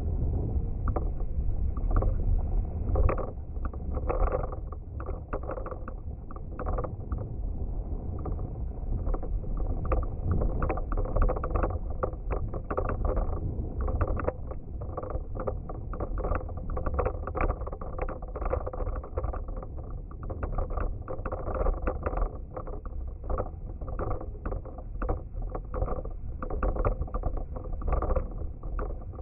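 Wind buffeting the microphone of a Shimano CM-1000 cycling action camera while riding, a heavy low rumble with frequent rattling clicks and knocks from the ride.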